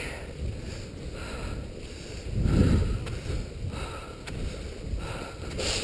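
Wind buffeting the microphone over the swish of skate skis gliding on a snow trail, in a rhythm of strides a little over a second apart, with a louder gust of rumble about halfway through.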